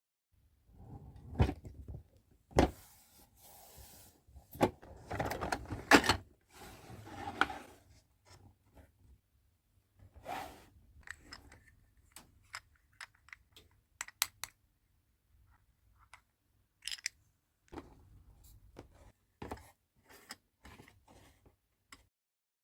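Toy packaging being unboxed by hand: rustling and scraping with a few louder knocks over the first several seconds, then a run of light, sharp clicks and taps.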